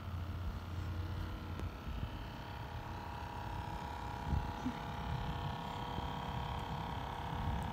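Electric motor of a radio-controlled model boat running with a steady whine that grows louder about halfway through as the boat comes close, over a low rumble.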